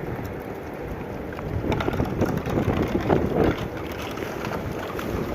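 Strong wind buffeting the microphone, a low rumbling rush that swells in gusts, with scattered crackles about midway.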